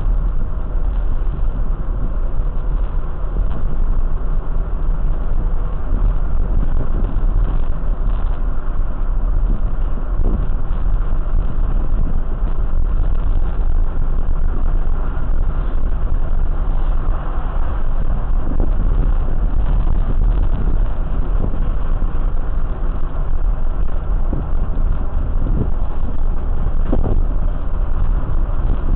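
Steady low rumble of a vehicle, heaviest in the deep bass, with no clear changes.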